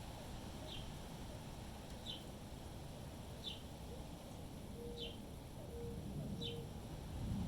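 A bird repeats a short, high call, dropping slightly in pitch, about every second and a half, five times in all, over steady low wind noise. A few brief low notes come in between the calls.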